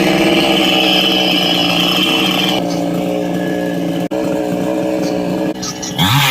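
Chainsaw engine running at high, steady speed. There is a brief break about four seconds in, and near the end the pitch drops and climbs back up.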